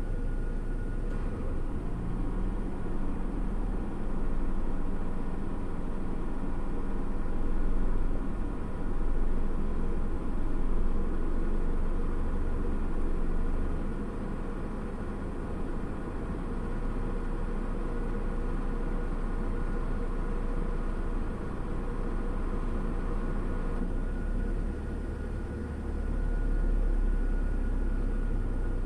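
Engine of a parked vehicle idling, a steady low rumble heard from inside the cabin, with slight swells in level.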